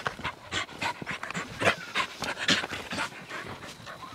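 A Brittany panting close by, in quick breaths at about three a second.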